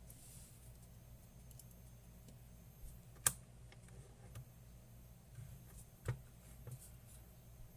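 Scattered small clicks and light knocks of hands working with equipment, the sharpest click about three seconds in and another about six seconds in, over a faint low electrical hum.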